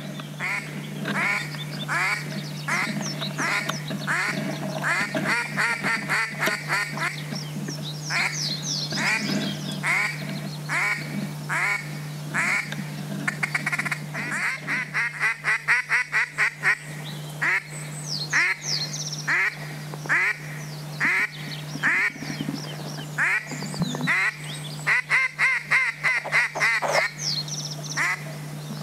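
Mallard-type quacking in long, evenly paced series that twice quicken into fast runs of quacks, with a few high whistles in between, over a steady low hum.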